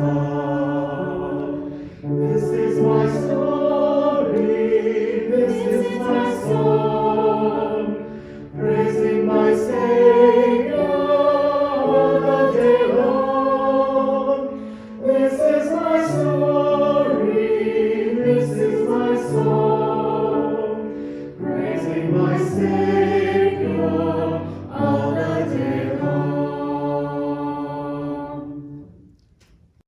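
Choir singing a hymn in several voice parts, in phrases with short breaths between them; the last chord fades away near the end.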